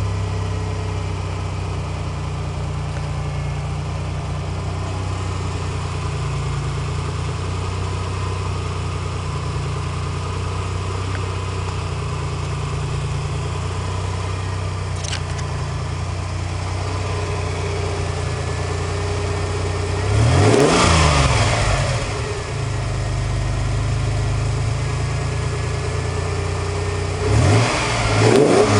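Freshly rebuilt Nissan 300ZX 3.0-litre V6 idling steadily, then revved twice, about two-thirds of the way in and again near the end, each rev rising and falling back to idle.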